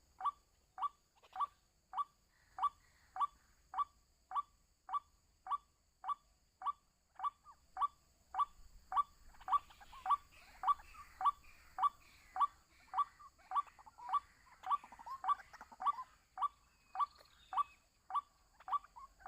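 White-breasted waterhen (ruak-ruak) calling: one short, monotonous note repeated evenly about twice a second. About halfway through, further overlapping calls join in, making it busier.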